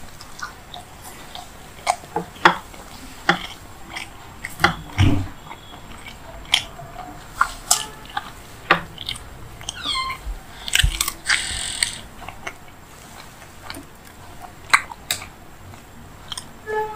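Eating sounds of a person chewing soft food with the mouth closed: wet lip smacks and irregular mouth clicks, with a brief squeaky mouth sound about ten seconds in.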